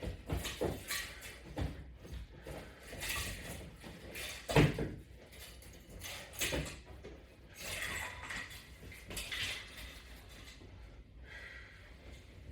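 Light clinks, knocks and rustles of exercise gear being handled, with one louder thump about four and a half seconds in.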